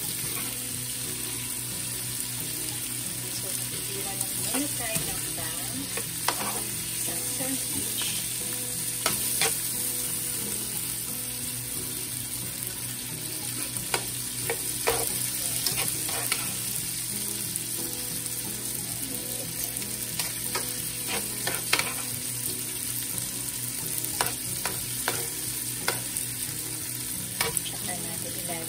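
Sliced ribeye steak, mushrooms and onions sizzling as they fry in a pan, with metal tongs turning the meat and clicking and scraping against the pan now and then.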